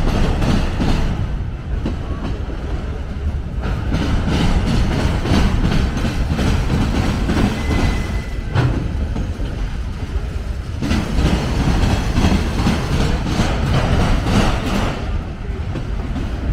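Autorack freight cars of a CSX train rolling past close by, a steady rumble with the wheels clattering over the rail joints. A short thin high tone sounds about halfway through.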